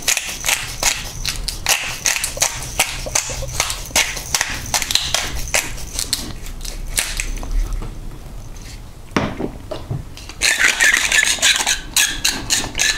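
A hand pepper mill twisted to grind black pepper: a fast run of crackly clicks for about the first seven seconds. After a short pause and a single knock, a glass salt grinder crunches sea salt from about ten and a half seconds in.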